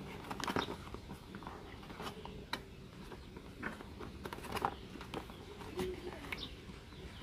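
A small cardboard product box being handled and opened by hand: scattered light taps, rustles and scrapes of card as it is turned over and its end flap is pulled open.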